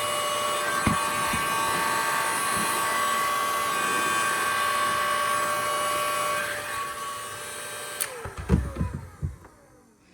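Electric heat gun blowing steadily with a fan whine, warming the wire's plastic insulation so it holds its pigtail shape. About two-thirds through it is switched off and winds down with a falling whine, followed by a click and a few knocks.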